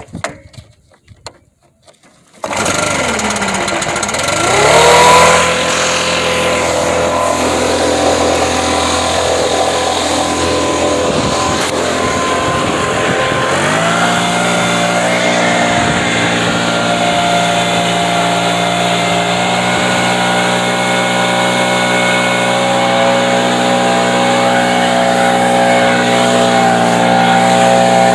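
Primed gas leaf blower engine starting: it catches about two and a half seconds in, revs up briefly, then runs steadily, stepping up to a higher, faster pitch about halfway through.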